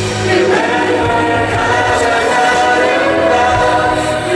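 Show music with a choir singing long, held notes over a musical backing.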